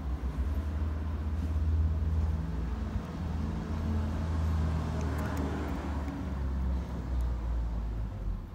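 Motor vehicle engine idling: a steady low rumble.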